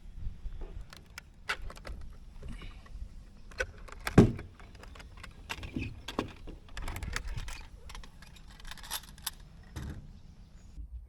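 Home-made 3D-printed cup anemometer clicking and rattling irregularly as it spins in the wind, over a low wind rumble; the loudest knock comes about four seconds in.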